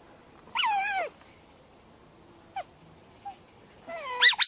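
Otters squealing: a loud, high, wavering call falling in pitch about half a second in, a short faint chirp in the middle, and two loud high-pitched squeals near the end.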